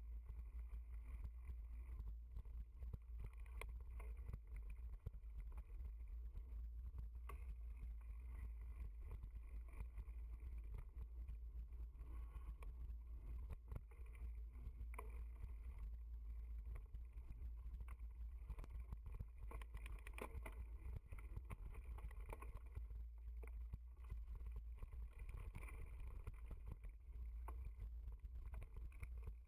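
Mountain bike running fast over a dirt trail: a steady low wind rumble on the microphone, with frequent clicks and rattles as the bike jolts over bumps and roots.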